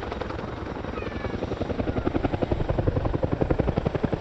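Boeing Chinook HC.6 tandem-rotor helicopter close by. Its rotor drone turns, about a second and a half in, into rapid, rhythmic blade slap that grows louder as the crew brings in power to climb away from the hover.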